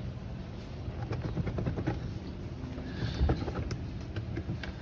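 Plastic air filter housing being worked open by hand, giving scattered clicks and knocks, with a few sharper clicks after about three seconds. A steady low hum runs underneath.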